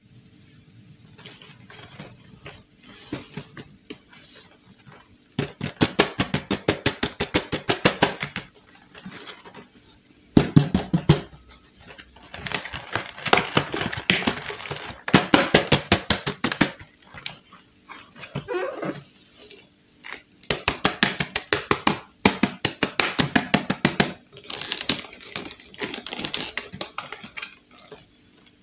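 Fingers tapping, scratching and pressing on cardboard toy boxes and their clear plastic windows, in runs of rapid sharp clicks lasting a few seconds each, with short pauses between runs.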